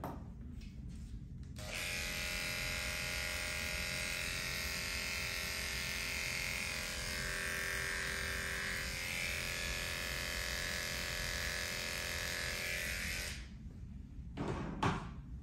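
Small cordless electric pet clipper buzzing steadily while trimming a Shih Tzu's coat. It switches on about a second and a half in and stops about two seconds before the end, then a short knock follows.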